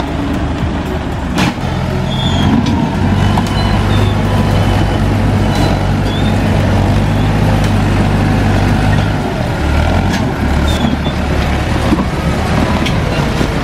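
Landini DT85 tractor's diesel engine working hard as its front blade pushes a pile of soil and limestone, with a few scattered clicks. The engine note dips and changes about nine seconds in, then steadies again.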